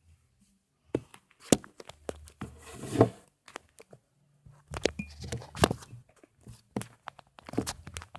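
Handling noise: irregular knocks, clicks and rustles as containers and slime materials are moved about by hand.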